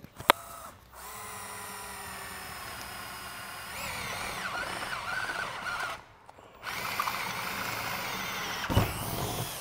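Cordless drill boring a pilot hole through the sheet-metal roof of a van, for the corners of a roof-fan cutout. The motor whine starts about a second in, grows louder and wavers as the bit cuts, stops briefly, then runs again, with a knock near the end.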